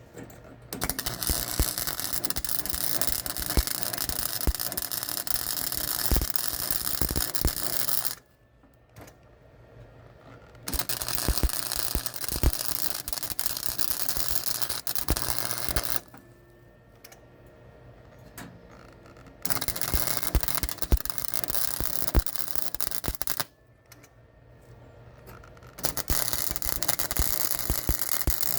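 Welding arc, a steady crackling hiss with sharp pops, laid down in four runs of several seconds each with short pauses between.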